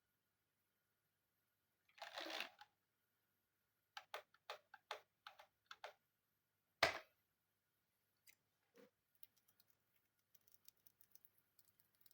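Hands working on an all-in-one PC's casing and parts: a short scraping rustle, then a run of about eight quick clicks, then a single sharp knock, the loudest sound, and faint small ticks near the end.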